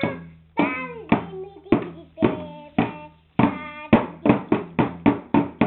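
A young child singing while beating a plastic toy drum with sticks. The strokes come about twice a second at first, then quicker in the second half.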